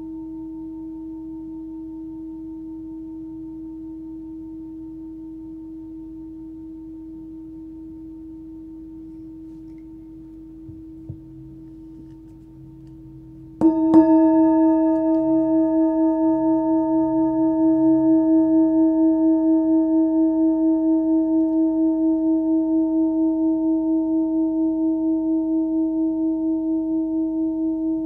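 A 14.3 cm forged Full Moon singing bowl ringing at about 320 Hz, between D# and E, its hum slowly fading. About halfway through the bowl is struck again with a sharp attack, then rings louder and brighter with higher overtones, wavering gently in loudness as it sustains.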